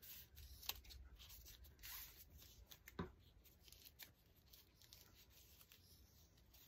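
Faint snipping of scissors cutting through a stack of thin plastic tablecloth strips, with the plastic rustling; two sharper snips stand out, one just under a second in and one about three seconds in.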